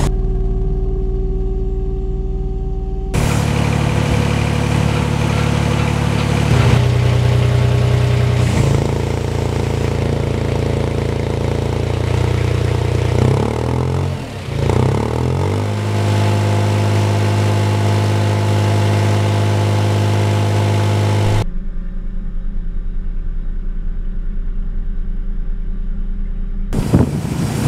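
Compact crawler spider crane's engine running steadily. Its pitch and tone change abruptly several times, with a wavering, unsteady stretch about halfway through.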